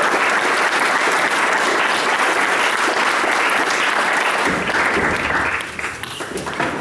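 A small group of people applauding with steady clapping that thins into a few separate claps and dies away about five to six seconds in.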